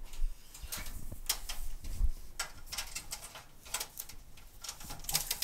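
Handling noise from an insulation jacket being wrapped around a stainless steel electric brewing kettle: scattered rustles and light clicks of the fabric against the metal, with a couple of soft thumps.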